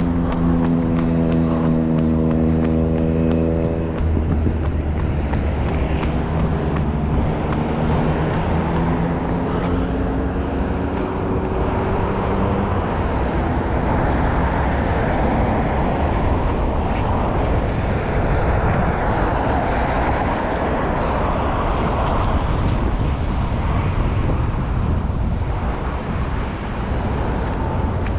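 Motor vehicle engine humming at a steady pitch, then a tone rising in pitch over several seconds as a vehicle speeds up, giving way to a steady rushing noise of road and wind.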